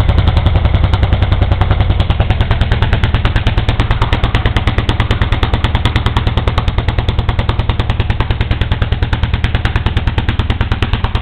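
1950 Lanz Bulldog Model P's single horizontal-cylinder two-stroke hot-bulb engine pulling hard, its exhaust firing in an even, loud beat of about ten sharp bangs a second. The engine is working against a dynamometer brake through its power takeoff, with flame coming from the exhaust stack.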